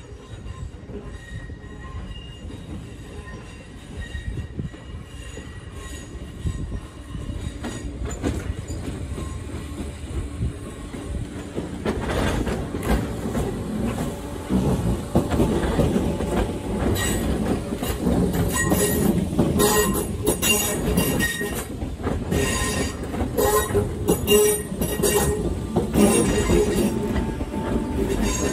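A train approaching and passing close, growing steadily louder from about halfway in. Its wheels squeal, and a run of sharp clicks from the wheels on the rails comes in the second half.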